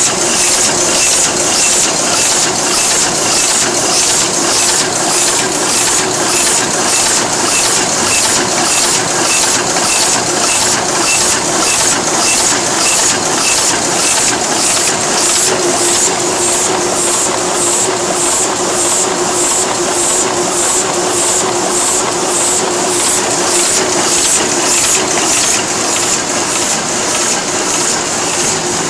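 Heidelberg GTO 46 single-colour sheetfed offset press running while printing: an even, rapid mechanical clatter of the sheet-feeding and gripper mechanism repeating at a steady pace, over a steady hum.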